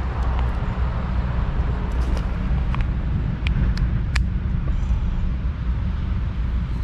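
Steady low rumble of road traffic passing close by, with a few light clicks as a drinks can is handled and set down on twiggy ground.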